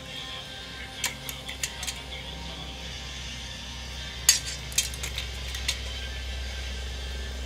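Short clinks of a ceramic bowl and wooden chopsticks knocking on a stainless-steel bowl while cold soba noodles are handled in water: a few light clinks early on, then a sharper one a little past the middle followed by several lighter ones.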